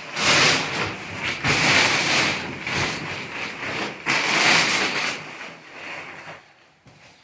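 Thick plastic protective sheet rustling and crinkling as it is pulled and handled over covered furniture, in three loud spells, dying away near the end.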